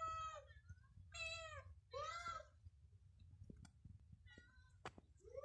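Domestic cat meowing repeatedly: a meow tailing off at the start, two more about a second apart, a short faint one past the middle, and another beginning near the end, with a few light clicks between.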